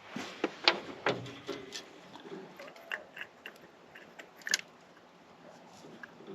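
Ratchet and socket clicking and knocking irregularly against metal as they are worked onto an engine's oil sensor switch. The sharpest knock comes about four and a half seconds in.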